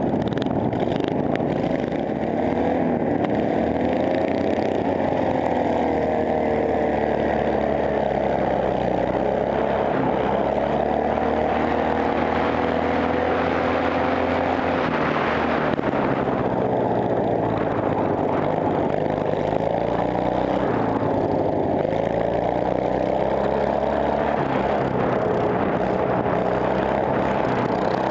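Racing ride-on lawn mower's engine running hard under the driver, heard from on board, its pitch rising and falling every few seconds as the throttle and speed change.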